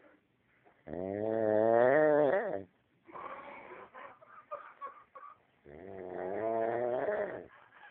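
A man snoring: two long, drawn-out pitched snores, each close to two seconds, about five seconds apart, with rougher, broken breathing sounds between them.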